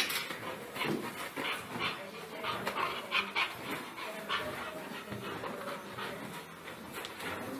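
A dog panting and whining in short, irregular bursts while tugging at a plastic cup.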